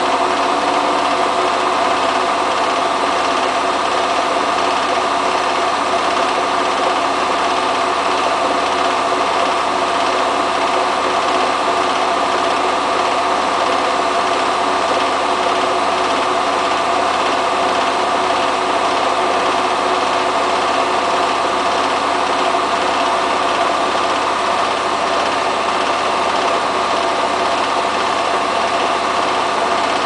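Hotpoint Ultima WT960 front-loading washing machine in a fast spin: the drum and motor run at a steady high speed, a constant whine of several tones over a rushing hiss.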